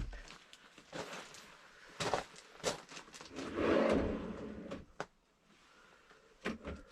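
Homemade sliding tray for a car fridge being slid out and back, a rolling rush of the slide in the middle with several sharp knocks as it stops and bumps.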